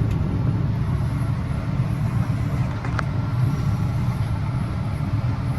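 Heavy vehicle engine running steadily with a low rumble, and a single sharp click about three seconds in.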